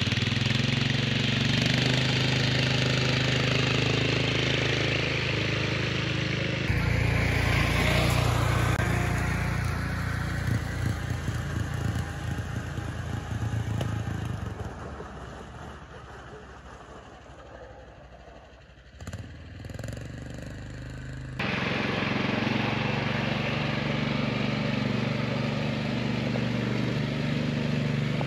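Small engine of a homemade 6x6 utility vehicle running as it drives off-road. In the middle stretch it fades away as the vehicle drives off into the distance, then it is close and steady again for the last few seconds.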